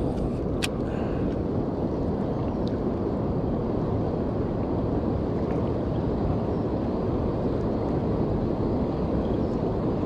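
Steady low rumbling of wind buffeting an action camera's microphone outdoors, with a single short click just after the start.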